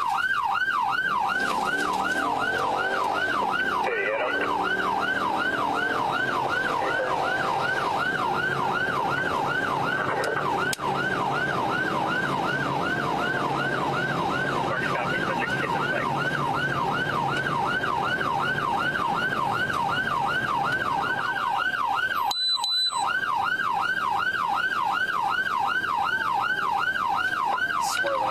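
Police siren on a fast yelp, a rising and falling wail repeating about three times a second, over the patrol car's engine and tyre noise. The sound drops out for a moment about 22 seconds in.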